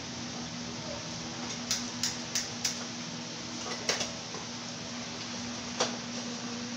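Gas stove's igniter clicking as a burner is lit: four sharp clicks about three a second, a quick pair a second later, then one more, over a steady low hum.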